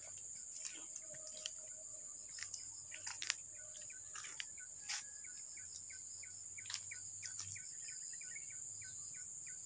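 A steady high-pitched insect chorus of crickets, with scattered crackles of footsteps on dry leaf litter. From about halfway through, a quick run of short chirps repeats about three or four times a second.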